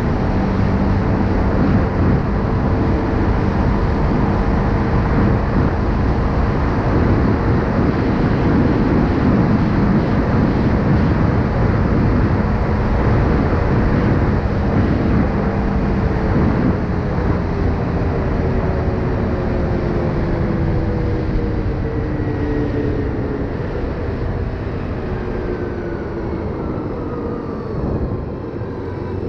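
Single-cylinder engine of a Linhai 500 ATV running at road speed, with wind noise over the helmet microphone. In the second half the engine note falls steadily as the quad slows down.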